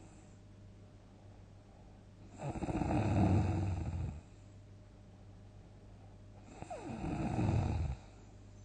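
A person snoring loudly in deep sleep: two long snores, each about a second and a half, a few seconds apart.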